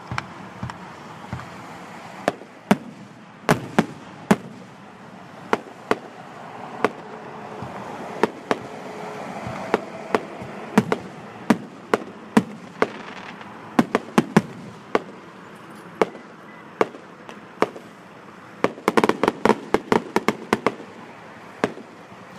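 Fireworks display: aerial shells bursting with sharp bangs at irregular intervals, a second or so apart, with a rapid run of bangs near the end.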